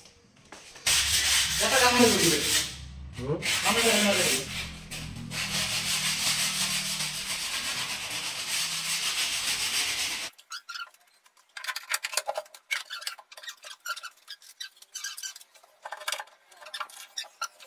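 A loud rasping noise with a low hum for about nine seconds that cuts off abruptly, from carpentry work on cabinet panels. After it comes a run of light clicks and taps as cabinet parts are handled and fitted.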